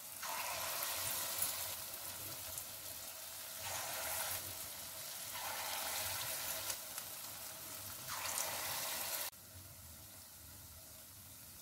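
Ripe-jackfruit pakora batter sizzling as it deep-fries in hot sesame oil in a steel kadai. The sizzle swells several times as more spoonfuls of batter are dropped in, then falls sharply to a quieter steady sizzle about nine seconds in.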